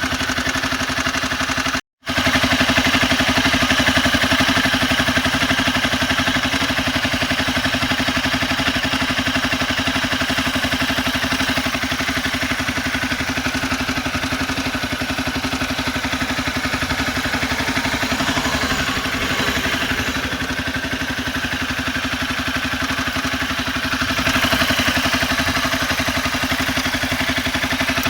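Honda CBR250R single-cylinder engine idling steadily with a fast, even clatter, the timing chain noise that the owner takes for a loose cam chain needing its tensioner adjusted. The sound cuts out completely for a moment about two seconds in.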